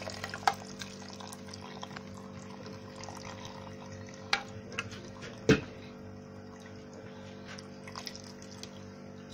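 Coconut milk poured in a thin stream into a steel pot of chopped vegetables: a quiet trickle and splash, with a few sharp drips. The loudest is a single plop about five and a half seconds in. A steady low hum runs underneath.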